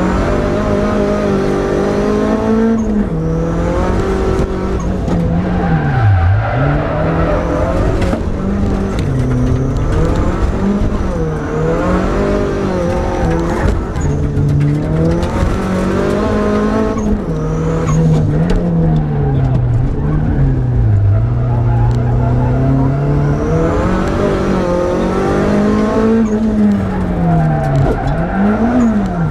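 Suzuki Swift competition car's engine, heard from inside the cabin, revving hard and dropping back every couple of seconds as the driver accelerates, shifts and lifts off through a fast, twisty run, with tyres squealing at times.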